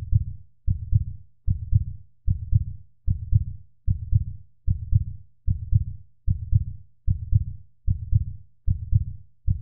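Heartbeat sound effect: deep, steady lub-dub thumps, about one beat every 0.8 seconds.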